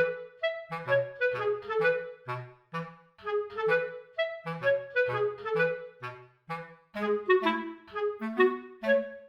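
Background music: a melody of short, quick notes over a lower bass line.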